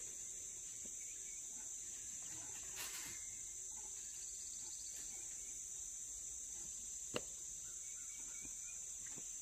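Steady high-pitched insect chorus, with one sharp click about seven seconds in.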